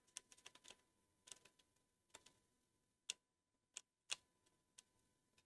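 Near silence broken by about a dozen faint, sharp little clicks and taps at irregular intervals, from hands and a small hand tool working on the model's lightweight parts and cables.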